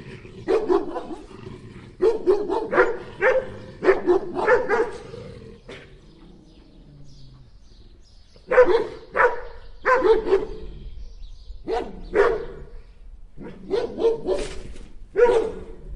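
Dog barking repeatedly in short bursts of several barks, with a pause of a few seconds about midway.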